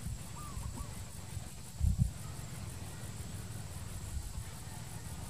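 Outdoor evening ambience: a low rumble with a brief louder surge about two seconds in, over a steady high-pitched insect drone.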